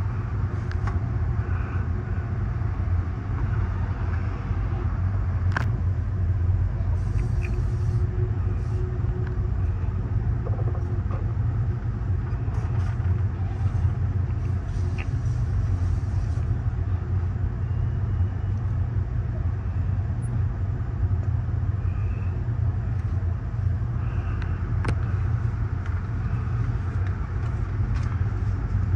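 Amtrak Superliner coach rolling along the track, a steady low rumble of wheels on rail heard from inside the car. There is a sharp click about five seconds in and another near the end.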